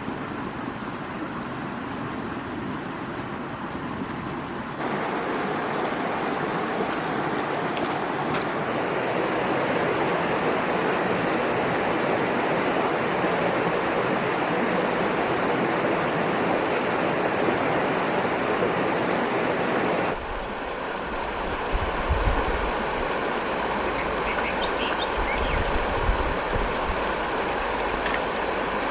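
Stream water rushing steadily, a step louder about five seconds in. About two-thirds through, the sound cuts to a low rumble with a few thumps and brief high squeaks.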